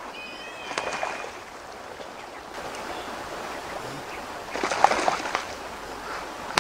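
Outdoor ambience: a steady hiss like running water, with a few bird chirps in the first second and a cluster of rustling, scraping noises about five seconds in.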